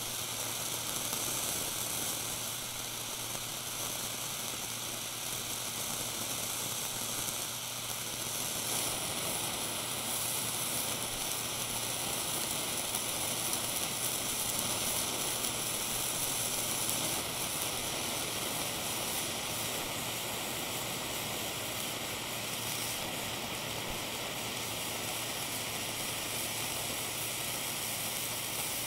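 Small handheld blowtorch flame hissing steadily as it plays on a block of blue cheese.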